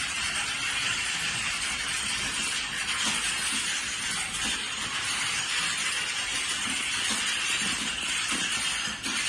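Many computer keyboards being typed on at once in a hall: a steady, dense clatter of keystrokes in which no single key stands out.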